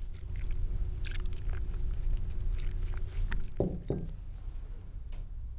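Water swirling and sloshing in a glass carafe turned by hand, with small clicks and crackles, then the carafe set down on a desk with a couple of dull knocks about three and a half seconds in.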